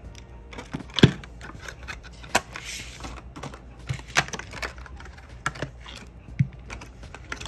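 Gel polish bottles and their packaging being handled: scattered light clicks and knocks, with a short rustle about two and a half seconds in.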